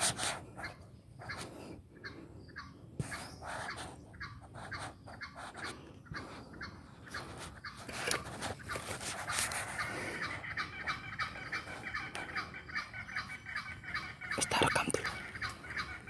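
Junglefowl calling and clucking amid scattered clicks and knocks. From about ten seconds in, a fast, even rattling joins underneath.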